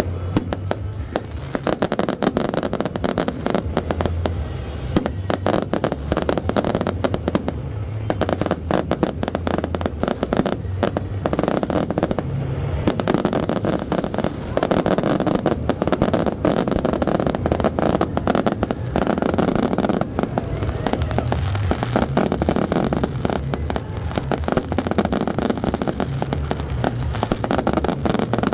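Fireworks display going off in a dense, unbroken stream of bangs and crackles.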